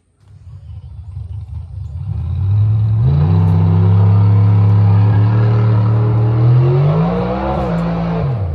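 An engine running, growing louder over the first few seconds, then holding a steady pitch. It revs up briefly near the end and drops back.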